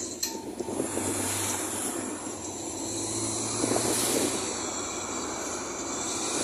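Bus in motion: engine drone with rattling and road noise, the hum swelling for a few seconds in the middle.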